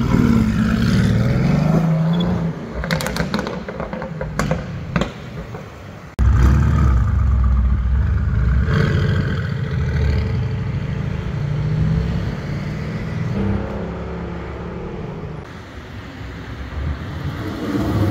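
Tuned Mercedes-AMG GT R's twin-turbo V8 accelerating hard, its note rising, with a string of sharp exhaust cracks and pops a few seconds in. A second loud pull follows, starting abruptly about six seconds in, with the engine at high load.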